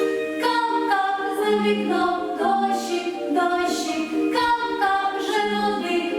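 Voices singing a vocal warm-up exercise a cappella: a short phrase of held notes, sung about twice. The exercise is meant to carry the voice upward in pitch.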